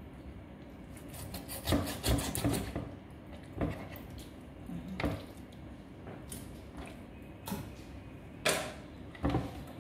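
Kitchen knife cutting raw chicken on a wooden chopping board: irregular knocks of the blade against the board, with rubbing and handling of the meat in between.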